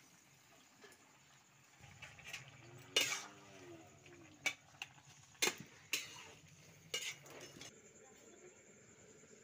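Metal spatula stirring vegetable curry in a metal kadai, with several sharp clanks of metal against metal; the first clank, about three seconds in, rings briefly.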